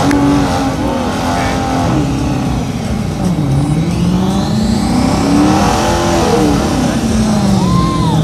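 Car engines revving hard as they launch and accelerate away. The engine note climbs, drops and climbs again several times, rising to a peak about six seconds in and then falling away.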